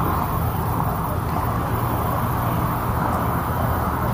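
Steady outdoor background noise with a low hum of road traffic.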